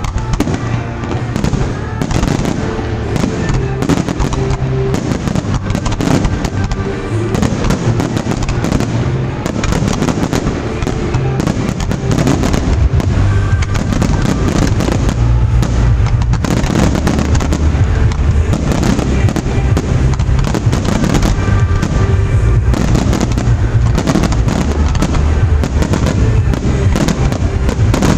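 Fireworks display: many sharp bursts and pops in quick succession over music with a steady low bass line. The bursts grow denser and louder about twelve seconds in.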